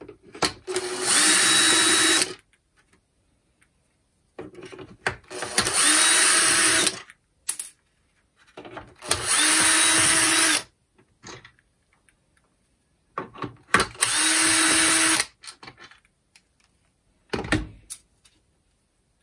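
Cordless drill-driver running in four short bursts, each about a second and a half with the motor spinning up at the start, backing out the four 3×14 mm self-tapping screws from the fan housing. Small handling clicks come between the runs, and there is a brief noise near the end.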